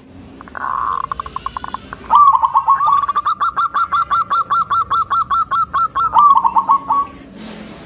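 Zebra dove cooing. It gives a short call that breaks into a fast rattle about half a second in. About two seconds in, a long run of rapid, evenly spaced coo notes follows at roughly five a second, and it ends in a rolling phrase near the end.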